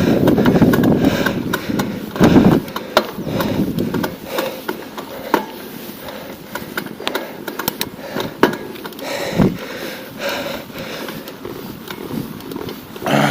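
Wind buffeting the microphone on a bicycle in motion, in loud rumbling gusts at the start, about two seconds in and again about nine seconds in, with sharp clicks and rattles from the bike scattered throughout.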